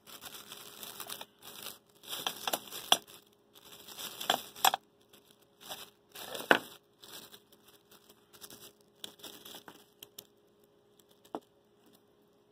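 Clear plastic wrap crinkling in irregular bursts as it is pulled off small metal parts, with a few sharp clicks among the rustling. The crinkling dies away about ten seconds in, leaving one last click near the end.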